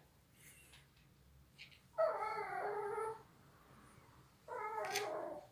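Shih Tzu giving two drawn-out, wavering whines, each about a second long: one about two seconds in and one near the end.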